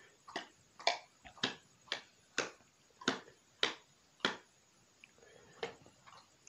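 Open-mouthed chewing of apple snail meat: wet lip smacks, about two a second, that stop a little past the middle, followed by a few fainter mouth sounds.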